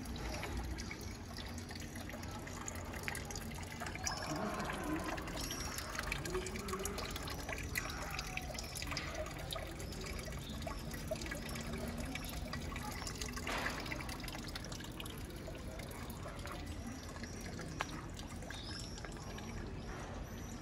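Water trickling and dripping in a narrow stone garden channel, a steady run with scattered small drips.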